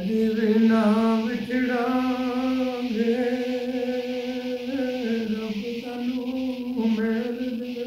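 A man singing a Gojri mahiya unaccompanied, drawing out one long line on a nearly steady pitch with small wavers.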